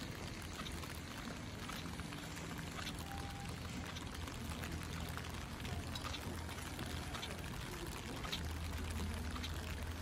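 Water running and splashing steadily on a wet street, with a low steady hum underneath that gets a little louder near the end, and faint footsteps on wet pavement.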